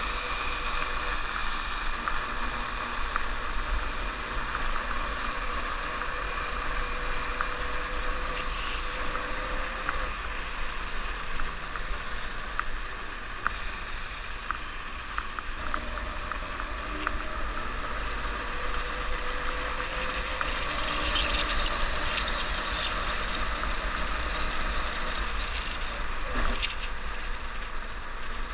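Snowmobile running steadily along a groomed trail: a constant engine and track noise whose faint pitch sags slightly and then rises again, with scattered small ticks.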